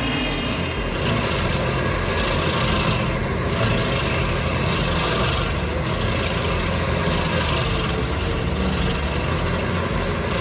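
Heavy machine's engine running steadily, with no change in pitch or level.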